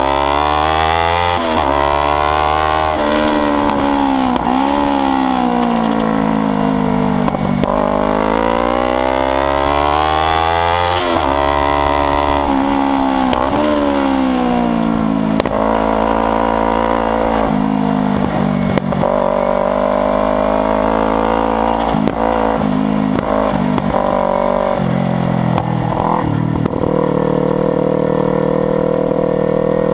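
Kawasaki Ninja 300's parallel-twin engine running loud through an aftermarket exhaust, its pitch climbing and falling every few seconds with sudden drops as the bike accelerates, shifts gear and slows for corners.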